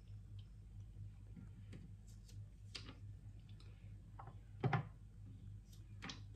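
Quiet kitchen handling: a few soft taps and light knocks as cooked lasagna sheets are lifted from a strainer and laid into a glass baking dish. The loudest is a dull knock about two-thirds through. A low steady hum runs underneath.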